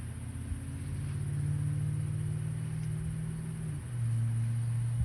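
A low, steady motor drone that drops to a lower pitch a little under four seconds in.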